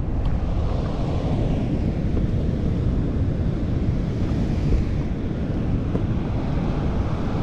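Wind buffeting the microphone over the steady wash of choppy sea, with surf breaking against rocks.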